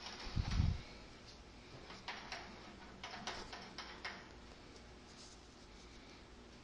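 Small metal clicks and taps of a thread adapter and draw bar being fitted by hand to a lathe spindle, with a dull low thump about half a second in. The clicks stop about four seconds in.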